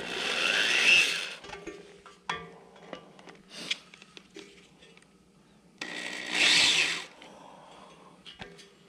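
Corded DeWalt drill spinning a countersink bit in two short runs, each about a second long, chamfering the oil holes in the main bearing saddles of a VW air-cooled engine case; the first run rises in pitch as the drill spins up. Light clicks and knocks of the drill and bit against the case come between the runs.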